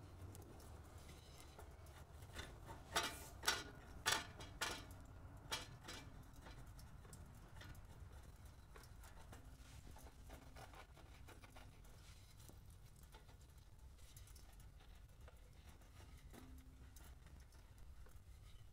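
A wooden stick scraping melted rain-pants residue, softened with oven cleaner, off a chrome Harley-Davidson exhaust pipe: a few sharp scrapes and taps about three to six seconds in, then faint scratching.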